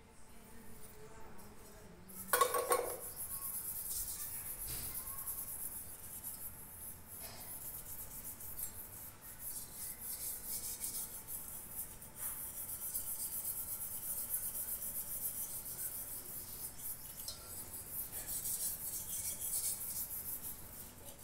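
Scrub pad rubbing over a copper lota: a continuous scratchy scrubbing as tarnish is worked off the metal with cleaner. A short louder knock comes about two and a half seconds in.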